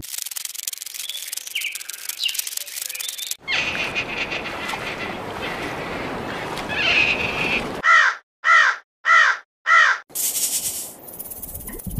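A crow cawing four times in quick succession, harsh calls a little over half a second apart. Before the caws there are several seconds of hissy noise with faint chirps.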